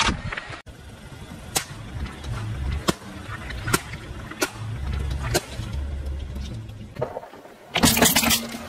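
A car rolls slowly with a low engine rumble while its tyre crushes objects, giving a few sharp isolated cracks. Near the end comes a loud, dense crunch as the tyre flattens small foil-lidded plastic food cups.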